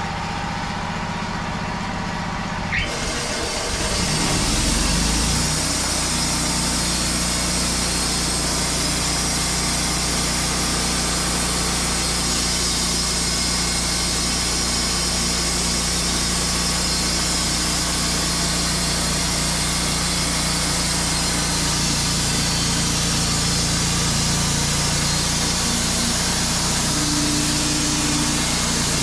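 Wood-Mizer LT35 portable band sawmill running: the engine revs up about three seconds in, then runs steadily at high speed with a constant high hiss as the sawhead travels toward the log.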